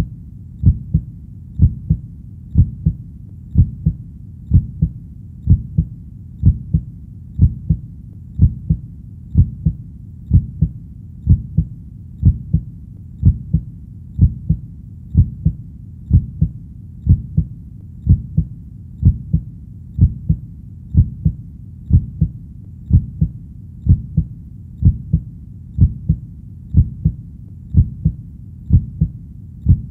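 Heartbeat sound: a steady, even rhythm of low double thumps (lub-dub), about one heartbeat a second.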